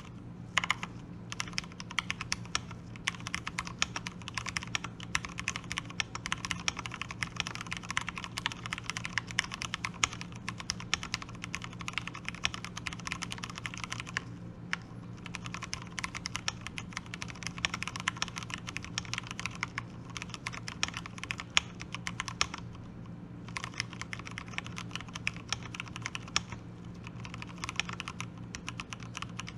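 Continuous fast typing on a fully lubricated mechanical keyboard with Cherry brown switches on light 35 g springs, giving a dense run of muted keystrokes. The typing breaks off briefly about halfway through and again about two-thirds of the way in.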